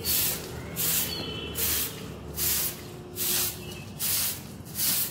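Short hand broom swept across paving stones in quick, even strokes: a swishing hiss about every three-quarters of a second, seven strokes in all.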